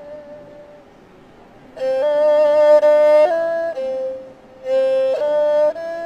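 Erhu playing a slow, lyrical melody in long bowed notes with a light vibrato. A held note fades to a softer stretch, then the line comes in louder about two seconds in and moves by small steps up and down in pitch, with a brief dip in loudness near the end.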